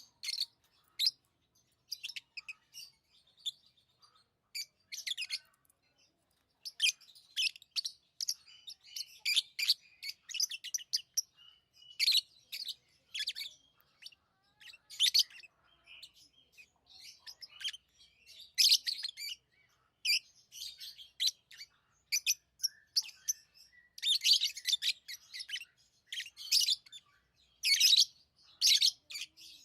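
Pet lovebirds chirping: many sharp, high chirps in quick clusters with short pauses between them, busiest near the end.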